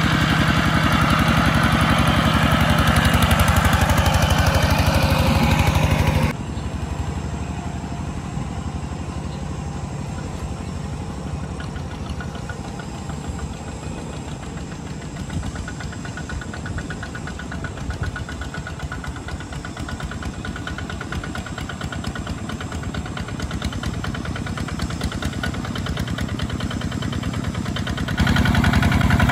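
Single-cylinder diesel engines of two-wheel walking tractors chugging under load as they pull rice-laden trailers through mud. The engine is loud and close at first, then about six seconds in the sound drops suddenly to a more distant engine that grows louder again near the end.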